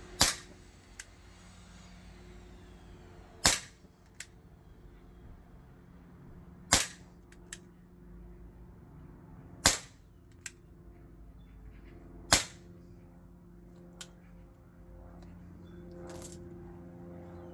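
Schofield replica CO2 pellet revolver with a 6-inch barrel firing five single shots about three seconds apart, each a sharp crack. A much fainter click follows each shot less than a second later.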